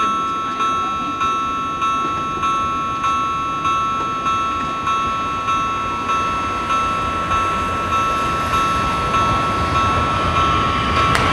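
Two level-crossing warning bells ringing in steady strokes, about one and a half a second. An approaching metro train's rumble grows louder near the end.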